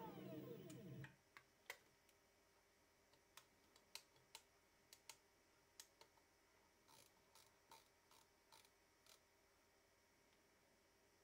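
Stepper motor driving a four-jaw chuck winding down to a stop with a falling whine, which dies out about a second in. Then come scattered soft clicks as the control box's RPM encoder knob and acceleration selector are set.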